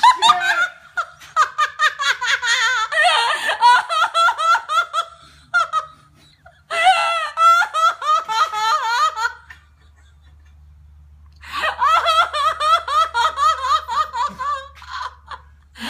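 People laughing hard in three long bouts of rapid, high-pitched laughter, with short quiet pauses between them.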